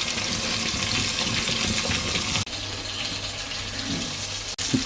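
Fish frying in hot coconut oil in a pan: a steady, even sizzle.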